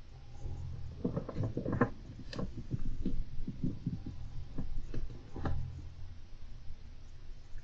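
Golden hamster scrabbling about its cage: a quick run of small irregular clicks and scratches about a second in, then scattered taps until about five and a half seconds, over a low steady hum.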